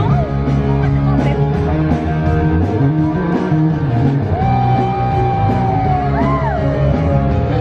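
Loud rock music with guitar over a steady bass line, with one long sliding note that slowly falls in the second half.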